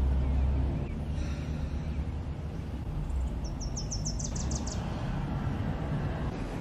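Steady low rumble of outdoor background noise, louder for the first second. About three and a half seconds in, a bird gives a quick run of high chirps.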